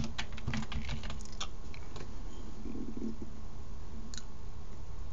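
Typing on a computer keyboard: a quick run of keystroke clicks in the first second and a half, then a single click about four seconds in, over a steady low hum.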